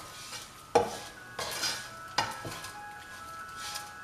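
Slotted spatula stirring and scraping poha in a non-stick frying pan, with several sharp knocks against the pan, the loudest about a second in, over a light sizzle.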